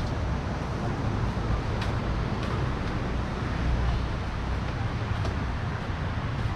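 Steady beach ambience: a continuous wash of surf with wind rumbling on the microphone, and a few faint ticks.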